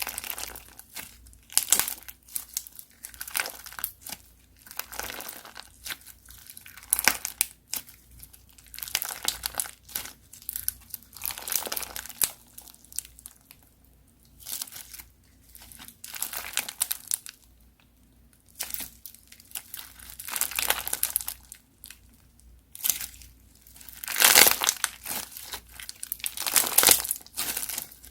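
Crunchy slime being squeezed and pressed by hand, giving irregular bursts of crinkly crackling with short pauses between, the loudest near the end.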